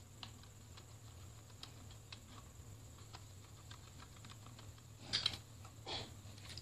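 Faint, scattered clicks and light taps of small plastic and metal parts being handled as a Maspion hand mixer is taken apart, with two louder clicks near the end.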